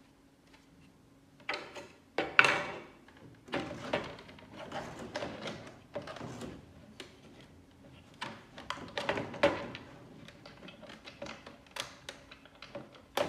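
Hard 3D-printed plastic heat-exchanger housings being handled and fitted together on a wooden tabletop: irregular knocks, scrapes and clatter, the loudest a knock about two and a half seconds in.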